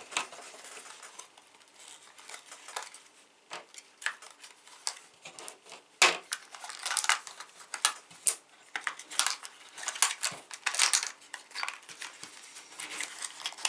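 Irregular light clicks, taps and rattles of small game pieces and packaging being handled on a table, busiest in the second half.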